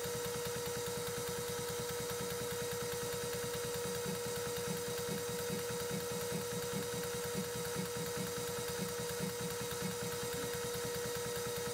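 Metal shaper running and cutting metal, with a steady machine hum and a regular knock from the ram's strokes, about one every two-thirds of a second.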